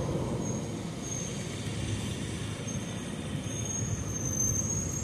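Street traffic rumbling steadily, with a faint thin high-pitched squeal, strongest near the end.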